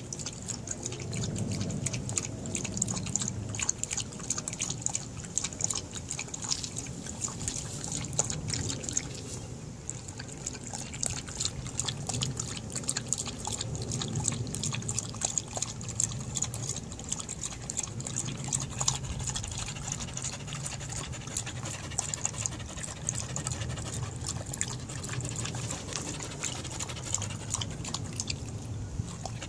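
Border collie lapping water from a ceramic bowl: a steady run of quick wet laps and splashes of the tongue.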